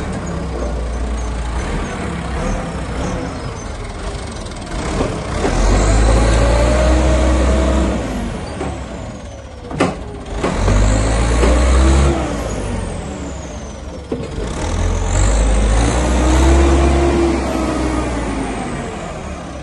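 JCB 3CX backhoe loader's Perkins diesel engine running and revving up and back down three times, with a sharp click about ten seconds in.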